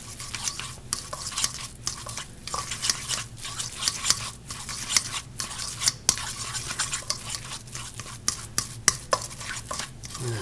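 A fork stirring and mashing a thick egg-yolk and pesto filling in a bowl, with quick, irregular clinks and scrapes of the fork against the bowl.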